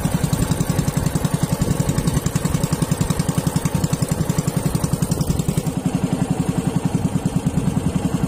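Small boat engine running steadily, a rapid even chugging of about ten beats a second.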